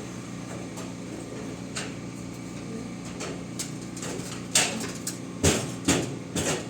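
A steady mechanical hum, with several sharp knocks or bangs in the second half, the loudest about four and a half seconds in.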